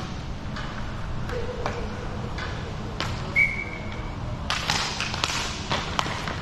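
Roller hockey on a plastic sport-court floor around a faceoff. Scattered clacks of sticks and skates, with a short high squeak-like tone about three seconds in. From about four and a half seconds the clatter and scraping of skates and sticks grow busier as play starts.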